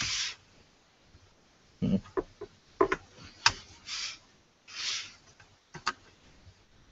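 Handling noise from a Jetway barebones mini PC being assembled: scattered clicks and knocks of its metal chassis and the 2.5-inch hard drive on its rails, with a few short hissing rubs.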